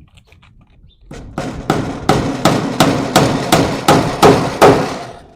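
Hammer striking a fastener into wood about a dozen times in a steady rhythm of roughly three blows a second, starting about a second in and growing louder.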